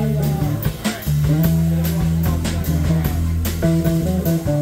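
Live jazz played on archtop guitar, upright double bass and drum kit: guitar chords and lines over walking bass notes, with a steady cymbal beat of about three strokes a second.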